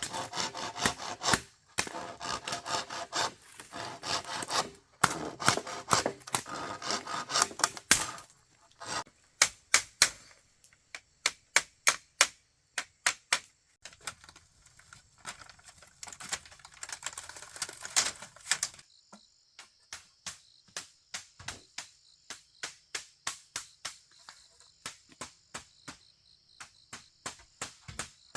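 Wood being worked with hand tools: a first stretch of quick scraping or sawing strokes, then a long, even run of sharp strikes, about two a second. A steady high hum comes in about two-thirds of the way through.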